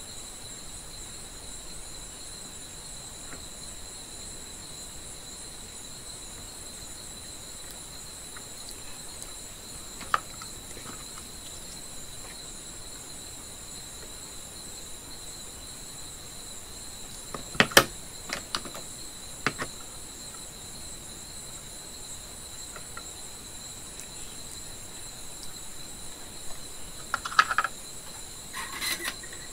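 Sharp clicks and taps of tools and wire being handled on the workbench: one about ten seconds in, a cluster a little past halfway, and more near the end. Underneath is a steady high-pitched trill.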